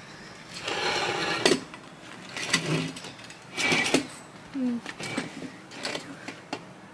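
Rustling and scuffing handling noises in several short bursts, the first and longest about half a second in, with a few brief murmured syllables near the end.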